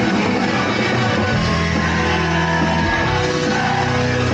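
Live rock band playing amplified in a concert hall, with electric guitar among the instruments.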